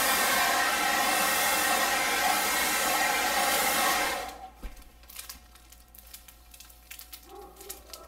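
Handheld hair dryer blowing steadily with a motor whine under the airflow, switched off about four seconds in. It is heating the plastic cover of a diamond-painting canvas to soften the glue underneath so the creases flatten. After it stops come faint crinkles of the plastic film being pressed down by hand.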